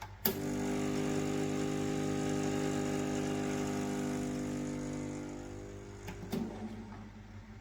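Espresso machine pump humming steadily for about six seconds, starting with a click and stopping with another click, fading a little just before it stops.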